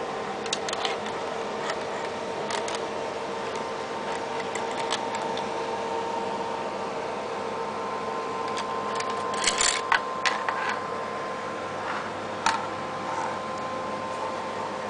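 Steady hum of a running desktop computer's fans, with scattered sharp clicks and a brief cluster of louder clicks past the middle.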